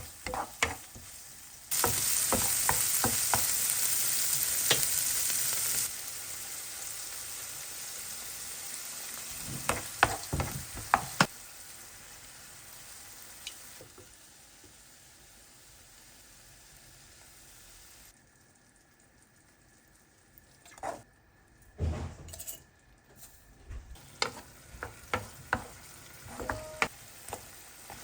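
Food sizzling in hot oil in a frying pan. The sizzle is loudest for a few seconds near the start, then settles lower and fades, with a clatter of utensil clicks and taps against the pan around the middle and again near the end.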